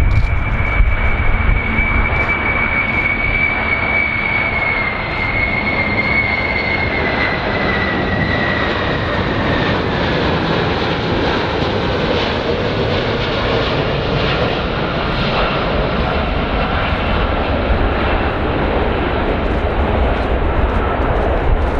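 Large airplane's engines running loud: a dense steady rumble with a high whine that glides slowly down in pitch from about five seconds in.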